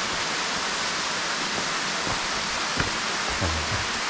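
Steady rush of falling water from a tall waterfall, Ssangyong Falls, an even hiss that holds without letting up.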